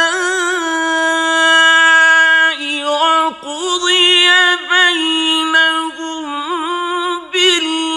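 A male Quran reciter's solo voice chanting Arabic in melodic tajweed style. He draws out long held notes with wavering ornaments, breaking off briefly a few times between phrases.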